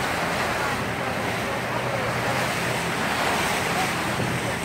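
Wind buffeting the microphone and water rushing past the hull of a small motorboat under way, over a low, steady engine hum.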